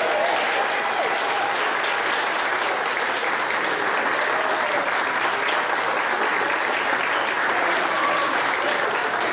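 Audience applauding, a dense steady clapping that holds at an even level, with a few voices calling out over it.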